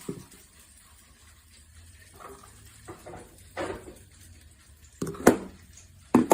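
Handling noises from a stainless-steel grain grinder: soft scraping and rustling, then sharp clicks and knocks about five seconds in and near the end as its lid and latches are worked.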